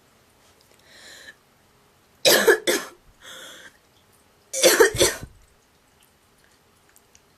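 A girl's honking, goose-like cough: two loud fits of two or three quick hacks each, about two seconds apart, each preceded by a shorter, quieter intake of breath.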